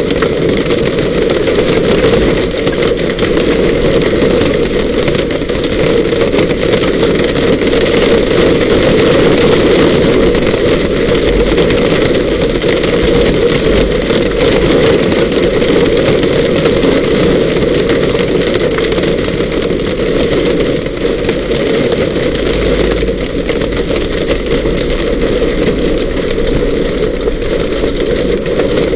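Rain and hail hitting a car's body: a dense, steady patter strewn with many sharp ticks from single impacts.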